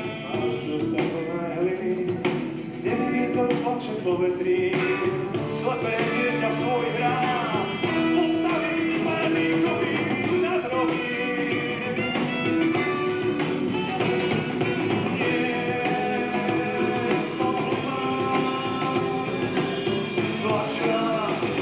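Live rock band playing: electric guitars, bass guitar, drum kit and saxophone, without a break.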